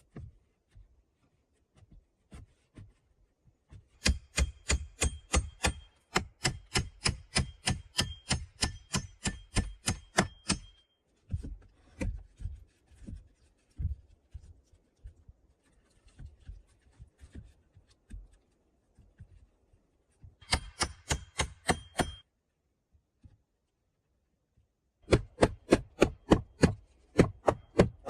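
A hand tool striking wood in quick, even strokes, about four a second, in runs of several seconds with pauses between. A fainter run comes in the middle and short loud runs come near the end.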